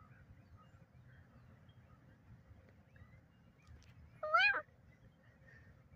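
A single short bird call about four seconds in, rising then falling in pitch, over a faint steady background.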